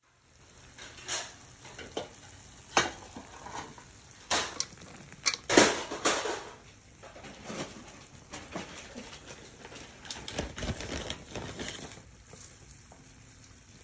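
Irregular clicks, knocks and light clatter of dishes being handled, with the loudest knock about five and a half seconds in.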